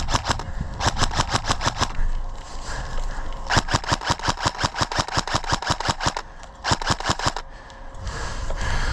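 Airsoft gun firing on full auto in four bursts of rapid snapping shots, about ten a second. The longest burst runs for nearly three seconds in the middle.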